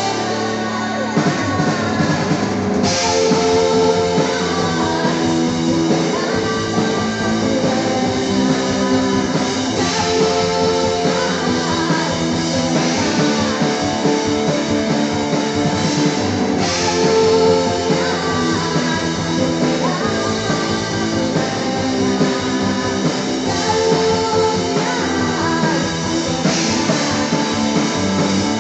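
A live rock band playing: a woman sings over electric guitar, keyboard and drums, amplified through a PA.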